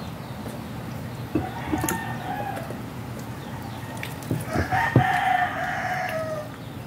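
A rooster crowing twice, the second crow louder and longer and dropping in pitch at its end.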